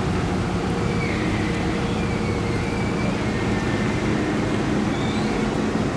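Diesel engines of Mercedes-Benz Actros heavy-haul trucks running steadily under the load of a 240-ton transformer, a low even drone. A faint high squeal comes and goes over it.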